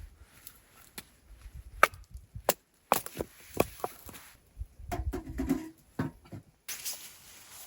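Dry firewood being snapped and knocked for kindling: a run of irregular sharp wooden cracks and knocks, busiest about five seconds in.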